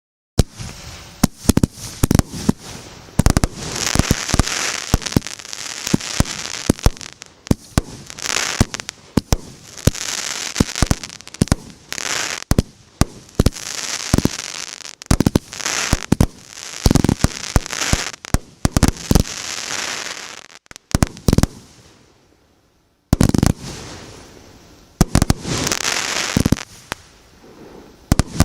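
MB166 consumer firework battery ("Power of Fire") firing shot after shot: sharp bangs in quick succession, each followed by a hissing crackle. A short pause comes about 22 seconds in, then more shots follow.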